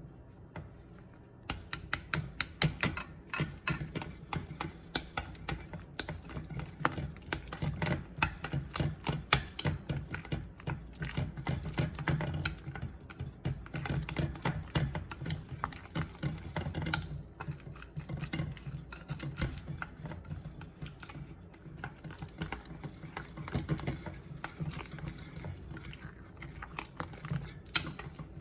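Rapid, irregular clicking and tapping of kitchen utensils, starting about a second and a half in.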